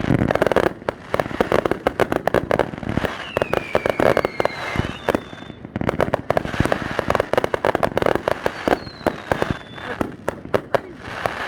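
Fireworks display going off in a dense, rapid barrage of bangs and crackling, with a falling whistle twice, which the onlookers take for the grand finale.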